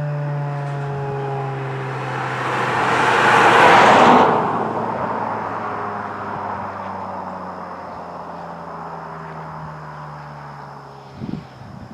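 Federal Signal 2001-SRN single-tone rotating warning siren winding down, its tone falling slowly in pitch and fading as the rotor slows after the alert. A passing vehicle's noise swells over it, loudest about four seconds in, then cuts off suddenly.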